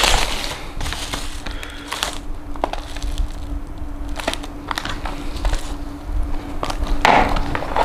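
Clear plastic wrapping crinkling as it is pulled off small cardboard model-car boxes, with another burst of crinkling near the end. Light clicks and taps come as the boxes are handled and set down on the table.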